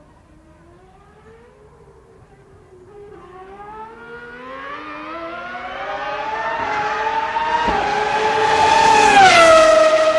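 Race car engine approaching, growing steadily louder as its pitch climbs, then passing by with a drop in pitch near the end.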